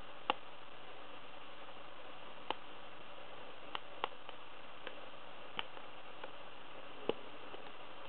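Pick working the pins inside a TESA T5 lock cylinder: about ten sharp, irregularly spaced metallic clicks over a steady hiss, as the cylinder is picked toward opening.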